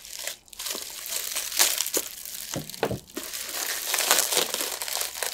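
Bubble wrap crinkling and rustling as it is pulled open and worked off a boxed plastic container, with many sharp little crackles.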